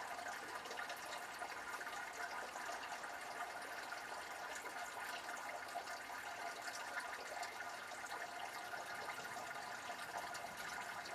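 Steady rain falling during a thunderstorm: a continuous hiss with scattered drip taps.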